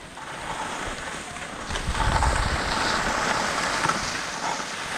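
Skis sliding and scraping over groomed snow while skiing downhill, with wind buffeting the microphone. The sound grows louder about two seconds in, with a low rumble of wind and a stronger hiss from the skis.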